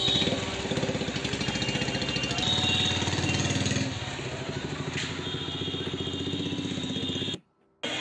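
A small engine idling with a fast, even pulse, which cuts off abruptly for a moment near the end.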